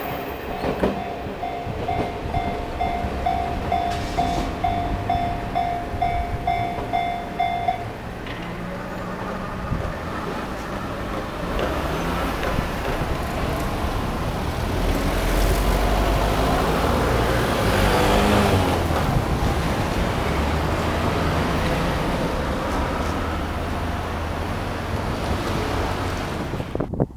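Level-crossing warning bell ringing about twice a second, stopping about eight seconds in. After it comes a steady low rumble of wind and distant traffic.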